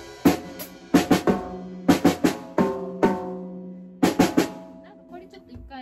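Acoustic drum kit played in short clusters of drum and cymbal hits, the drums left ringing between them. This is halting practice of a song's drum part by a learner unsure of the pattern. The playing stops about four and a half seconds in.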